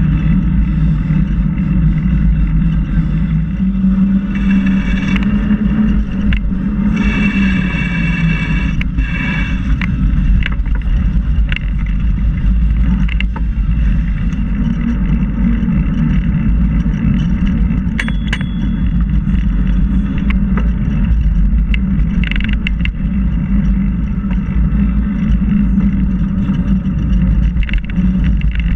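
Steady wind buffeting on the microphone of a camera moving along a gravel trail, with tyres rolling over the gravel and scattered knocks from bumps.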